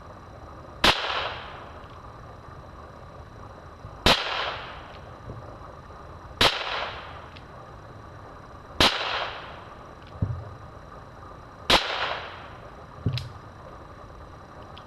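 J.C. Higgins Ranger .22 revolver firing five single shots a few seconds apart, each a sharp crack followed by a short echo. Two fainter knocks come between and after the last shots.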